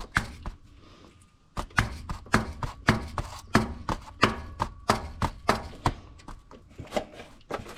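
A hammer tapping a screwdriver through the steel can of an engine oil filter to punch a drain hole: a run of sharp, separate strikes about three a second, starting about a second and a half in.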